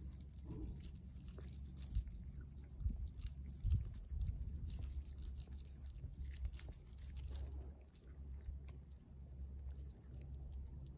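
A cat chewing and biting into fresh raw fish, with irregular wet clicks of its jaws and a couple of louder bites about two and four seconds in, over a steady low rumble.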